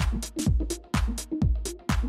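Background electronic dance music with a steady kick drum about twice a second and crisp hi-hats between the beats.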